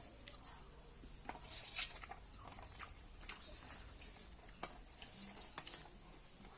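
Someone eating saag and rice: irregular wet mouth and chewing sounds with short, sharp clicks and light clinks against the plate.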